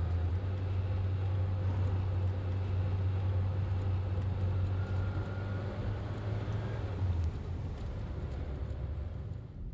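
Steady low drone and road noise of a moving van heard from inside the cabin. The low hum drops away about seven seconds in, and softer road noise carries on.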